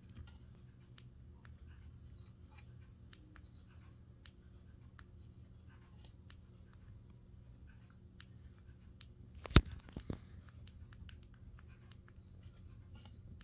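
Faint handling of a smartphone: scattered small taps and clicks. One sharp, loud click comes a little after the middle, followed by a softer one about half a second later.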